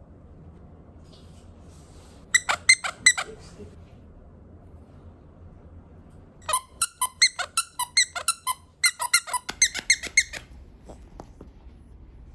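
Short, sharp high-pitched squeaks: four in quick succession a little over two seconds in, then a fast run of about twenty, roughly five a second with a brief break, from about six and a half to ten seconds in.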